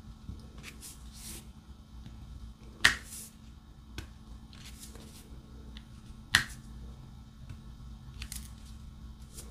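Small plastic clicks and taps of a diamond-painting drill pen picking up resin drills and pressing them onto the canvas, with two sharper clicks about three and six seconds in.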